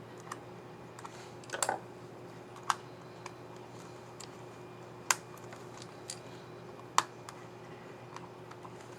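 Plastic clicks from a laptop keycap and its scissor mechanism being fitted and pressed by hand on the Lenovo IdeaPad Yoga 530 14IKB keyboard: irregular single clicks, a short rattly cluster about one and a half seconds in, and three sharper clicks spread through the rest.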